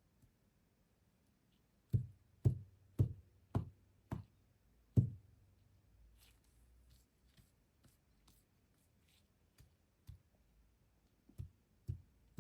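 Dull taps, six in quick succession about half a second apart, the last of them the loudest. Faint light clicks follow, then four more taps near the end.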